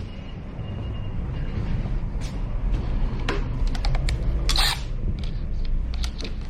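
Scattered clicks and clatter of hand tools and small metal parts being handled while a Torx 30 bolt is worked, with a short scraping burst about four and a half seconds in, over a steady low rumble.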